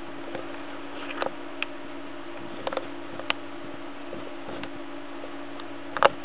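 Scattered light clicks and taps over a steady low hum, the sharpest a quick double tap near the end.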